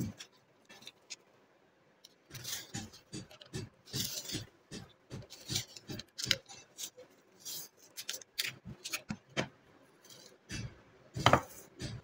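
Masking tape being pulled off its roll, torn and pressed around a steel knife blade. It comes as an irregular run of short rips, crackles and light knocks, the loudest a little before the end.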